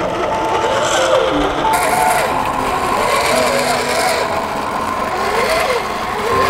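Scale RC Toyota Hilux crawler's electric motor and gear train whining as it creeps over rough ground. The pitch of the whine rises and falls with the throttle.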